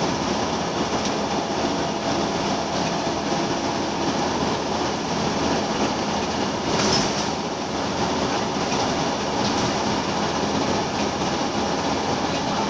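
Interior sound of a Scania L94UB Wright Solar single-deck bus under way: the rear-mounted 9-litre five-cylinder diesel running steadily over road noise, heard from inside the saloon. A short, louder rush of noise comes about seven seconds in.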